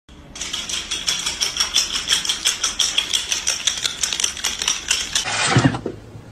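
Rapid clicking and tapping of a small pet bird's claws on a hard tiled floor as it runs, many taps a second. About five seconds in comes a short, louder rush of noise.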